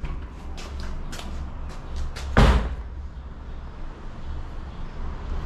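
A metal door being pushed open, with light clicks and rattles and one loud bang about two and a half seconds in, over a low steady rumble.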